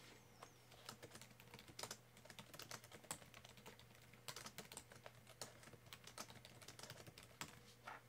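Faint typing on a computer keyboard: a run of irregular key clicks.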